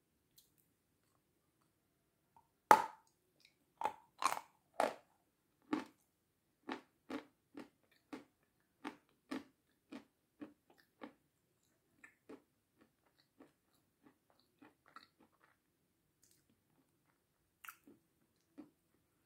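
A crunchy bite into crisp meringue dipped in sour cream, close to the microphone, about three seconds in, then crunchy chewing at about two chews a second that grows fainter, with two more crunches near the end.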